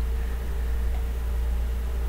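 Minced meat sizzling in a frying pan on high heat as a wooden spoon stirs it, a steady hiss over a constant low hum.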